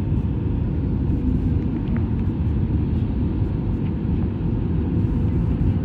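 Passenger jet cabin noise: a steady, loud low rumble from the aircraft, with a faint steady whine above it.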